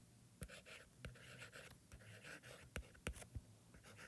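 Faint handwriting: short scratching strokes of a pen or marker being written out, with several light taps between strokes.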